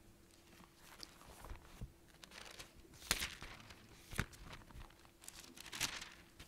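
Thin Bible pages being leafed through, a handful of short papery rustles and flips as a passage is looked up, over a faint steady hum.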